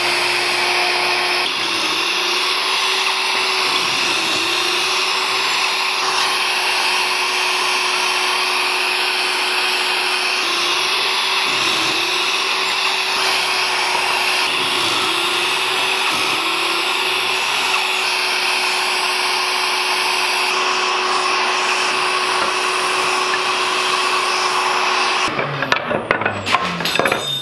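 Shop vacuum running steadily as dust extraction on a Kreg K5 pocket-hole jig while pocket holes are drilled, its pitch dipping briefly several times. It shuts off near the end, followed by a few knocks of wooden boards being handled.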